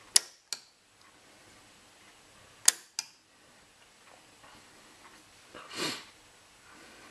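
Two pairs of sharp clicks, the clicks in each pair about a third of a second apart: a toggle switch being thrown and a Peco solenoid point motor, fired by a capacitor discharge unit, snapping the point over. A softer, longer rustle near the end.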